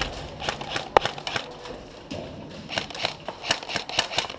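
Irregular rustling with scattered sharp clicks: a player moving off at pace with his gear.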